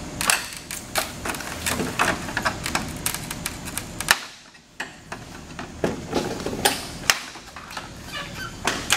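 Irregular clicking and knocking of plastic bumper trim and its retaining clips being pried and worked loose by hand and screwdriver, with a brief quiet gap a little past four seconds in.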